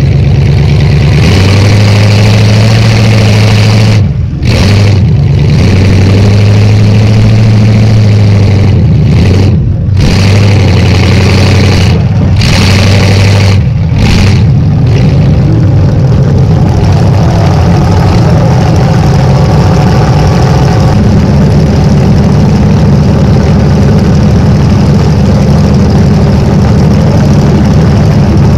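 Derby-car V8 running very loud through short open exhaust pipes sticking up through the hood, heard right beside them; engine speed steps up and down several times, with brief sharp dips about four, ten and fourteen seconds in, then settles into a steady run.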